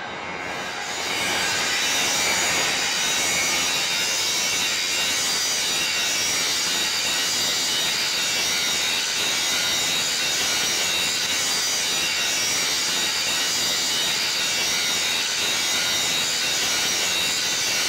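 Electric angle grinder running under load against a metal plate, a steady high grinding hiss that swells in over the first second or two and then holds level.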